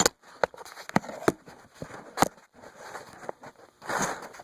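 Handling noises: a few light clicks and knocks, the clearest about a second and two seconds in, as a phone is propped in place against a wrench.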